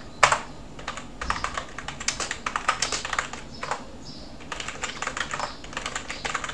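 Computer keyboard typing in quick runs of keystrokes with short pauses between them. One sharp, louder key press comes just after the start.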